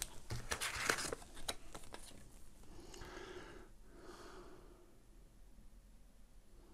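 Small handling clicks and light plastic crinkling over the first two seconds as a small bag of coils and the vape mod are handled. After that comes quiet breathing through the nose, close to the microphone, in soft puffs about a second apart.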